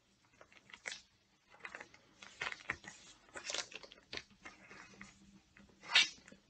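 A stack of comic books and cardboard being handled: irregular light taps, clicks and rustling of paper and plastic, with one louder rustle about six seconds in.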